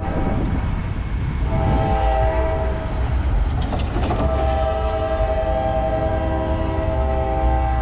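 Locomotive air horn sounding a chord in two blasts, a shorter one about a second and a half in and a longer one from about four seconds in, over the low rumble of a passing train.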